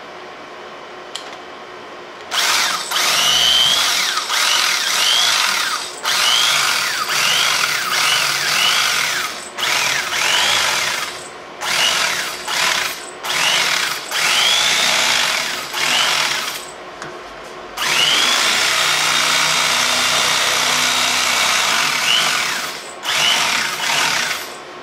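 Corded electric carving knife running in a string of short start-stop runs, its motor whine swooping up and down as the blades saw through a foam case insert. It starts about two seconds in, and there is one longer, steadier run of about five seconds near the end.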